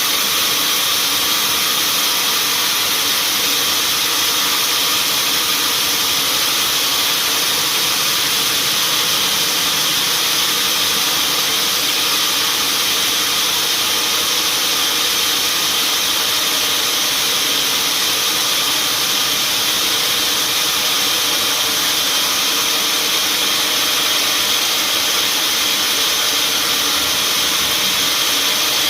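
Sawmill machinery running steadily, an even, unbroken rushing noise weighted toward the high end with a faint steady hum beneath.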